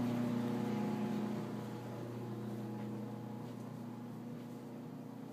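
A steady machine hum at one fixed low pitch, with no other sounds over it, slowly growing fainter.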